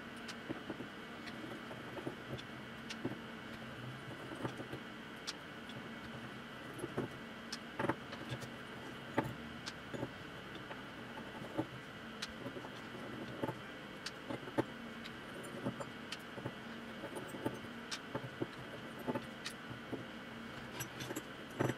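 2.5 mm hex driver backing out the small screws of a machined-aluminium RC beadlock wheel by hand: light metal clicks and ticks, scattered a second or so apart, over a faint steady hiss.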